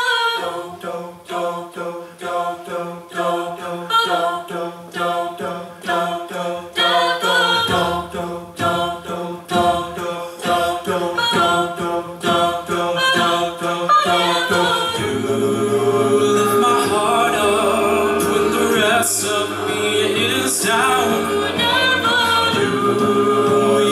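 A cappella group singing a wordless intro: stacked vocal chords pulse in a steady rhythm over sharp percussive beats. About fifteen seconds in, the voices swell into fuller sustained chords with a low bass line underneath.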